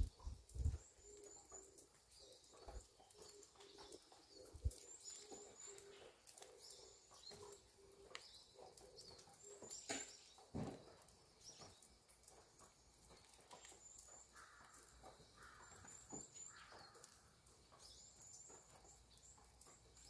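Faint morning birdsong: small birds chirping in short high clusters, with a dove cooing in a row of low, evenly spaced notes over the first several seconds.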